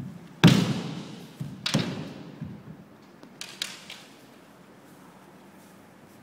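Kendo sparring: bamboo shinai striking and clacking against each other and the armour, with stamping on the wooden floor, echoing in the hall. Two loud hits land about half a second and about two seconds in, followed by a few lighter clacks around three and a half seconds in.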